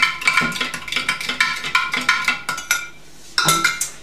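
A metal spoon stirring sugar into lemon juice in a glass pitcher, clinking rapidly against the glass with a bright ring. The stirring stops about three seconds in, and a couple of sharper knocks follow near the end.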